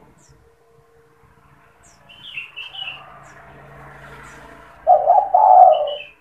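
Spotted dove giving one loud coo about five seconds in. A few short, high chirps from small birds come about two seconds in and again just before the end.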